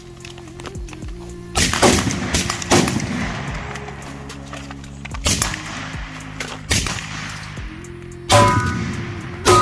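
Rifle shots from short-barreled AR-15 carbines, fired singly at an uneven pace, about seven in all, the loudest near the end. Steady background music runs underneath.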